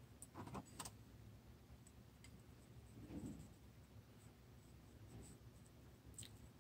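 Near silence with faint handling noise of a rubber O-ring being stretched by hand around the base of a scooter clutch torque driver: a few light clicks in the first second and a soft rub about three seconds in.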